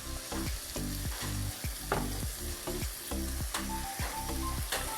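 Chopped onion, green chilli and ginger-garlic paste sizzling as they fry in hot oil, while a spoon stirs and scrapes the pan about twice a second: the onions sautéing until soft.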